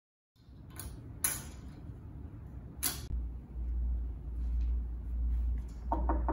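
A few sharp clicks and a low rumble, then, near the end, knuckles knocking on an open wooden door.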